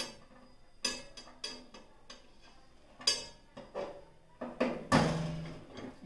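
Metal rotisserie spit and its wire skewer frame clinking and knocking against the steel cavity of a convection microwave oven as it is set into its socket. Irregular sharp metallic clinks, the loudest about five seconds in.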